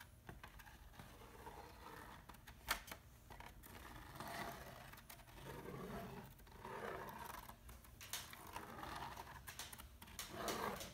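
Spirograph drawing: a small plastic gear with a pen in it rolls around the inside of a toothed plastic ring. It makes faint rasping in swells, with a few sharp clicks as the gear teeth mesh and the pen scratches over the paper.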